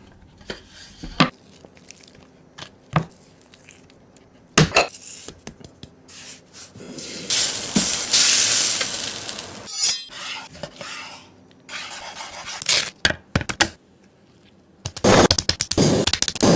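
Cooking sounds: metal utensils knocking and scraping against pans and dishes, with a stretch of sizzling hiss from about seven to ten seconds in and a dense run of clatter near the end.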